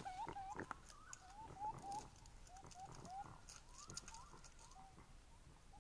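Faint series of short, rising chirp-like animal calls, about three a second, several overlapping at slightly different pitches and thinning out after about three seconds, with a few soft clicks among them.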